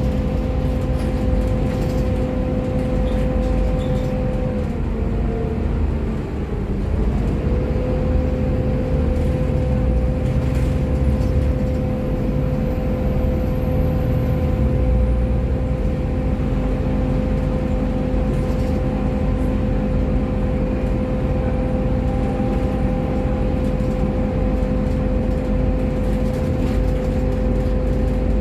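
Volvo B7TL double-decker bus heard from inside while under way: a steady low drivetrain rumble with a constant whine. About five seconds in, the whine sags in pitch and then climbs back within a couple of seconds.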